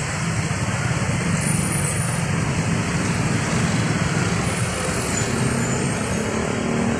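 Road traffic noise: a steady low rumble of vehicle engines.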